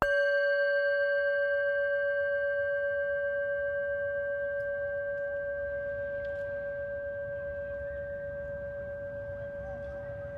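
A Tibetan singing bowl struck once, its ringing tone fading slowly with a gentle wavering pulse.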